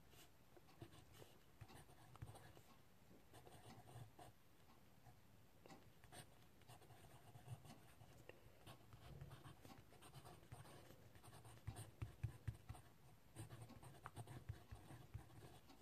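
Faint scratching of a pen writing on paper, short strokes one after another, with a few louder taps on the table about twelve seconds in.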